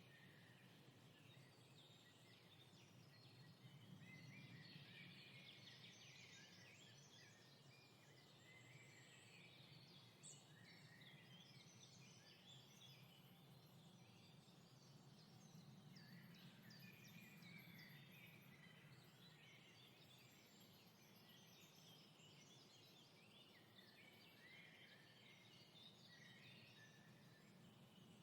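Faint chorus of many songbirds chirping and singing at once, over a low steady hum.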